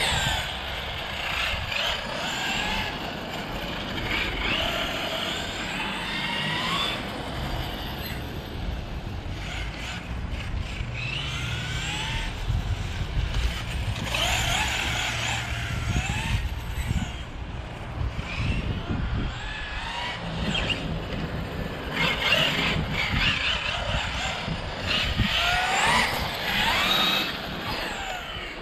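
Brushless electric motor of an MCD XR5 20S RC car whining, its pitch rising and falling over and over as the car accelerates and slows through turns.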